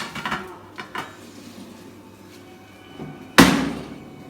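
Kitchen clatter of a roast turkey and its tray being handled at a countertop air fryer toaster oven: a few light knocks near the start, then one loud sudden knock about three and a half seconds in.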